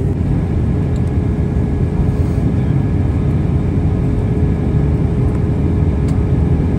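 Steady cabin noise of an Airbus A320 airliner on approach: a loud, even rumble of engines and airflow with a steady hum through it.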